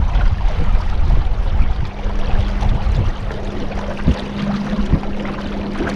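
Boat motor running at a steady drone with one constant pitch, under a loud rush of wind and water.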